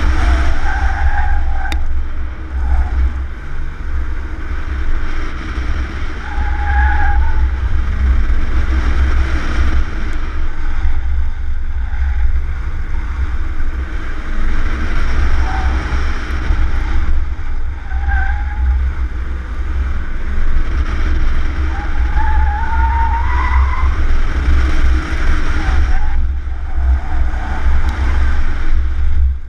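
Yokohama touring tires on a stock 2001 Cadillac Seville squealing briefly in the corners of an autocross course, several times, with a longer rising squeal about two-thirds of the way through. A heavy, steady wind rumble on the exterior-mounted camera microphone runs underneath.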